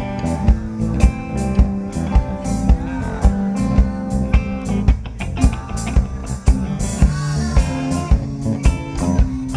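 Live band playing a pop-rock song: a steady drum beat of about two hits a second under bass and electric guitar.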